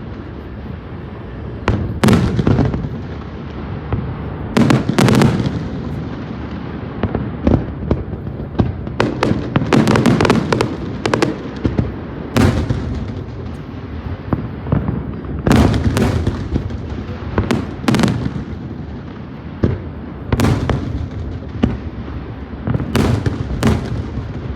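Aerial fireworks display: shells bursting in a long run of sharp bangs at irregular intervals, some in quick clusters, over a continuous din of further bursts.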